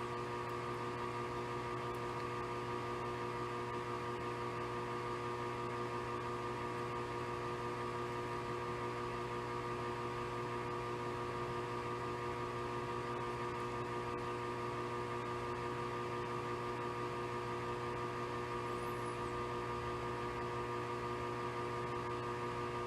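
Steady electrical hum with a faint hiss, made of several constant tones that never change.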